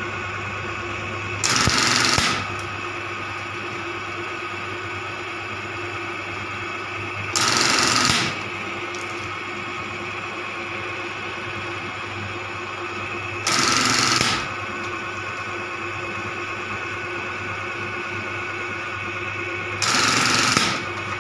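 Lewis button-sewing machine test-running just after repair of its button device. Its motor hums steadily, and four times, about six seconds apart, it runs a rapid stitching cycle lasting about a second as a button is sewn on.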